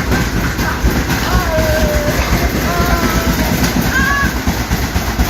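Washing machine running with a loud, continuous heavy rumble and rattling clatter, behaving wildly.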